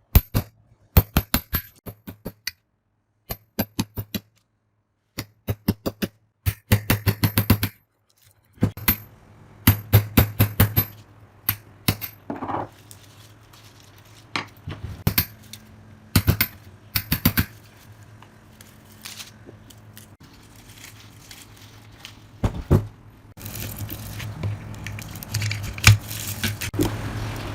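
Sharp metallic clicks, knocks and clinks in quick runs of several strikes, from metal parts of an old meat grinder being handled and worked on. A low hum comes and goes underneath, and from about 23 seconds in a steady hiss joins it.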